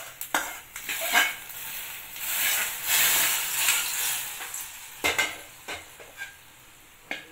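Hot ghee with fried coconut, cashews, almonds and raisins tipped from a small pan into simmering payasam, sizzling as it hits the liquid, with scrapes and clinks of metal against the pan. The sizzle fades about four seconds in, leaving a few clinks.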